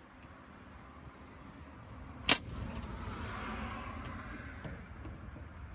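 A lull with faint background noise and one sharp click about two seconds in.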